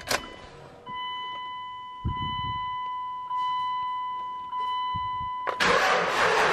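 A dashboard warning chime dings about once every second. Then, about five and a half seconds in, the 24-valve Cummins diesel with its S400 single turbo is started and a sudden, loud, steady rush of engine noise takes over. The turbo's intake is left open with no intake pipe fitted.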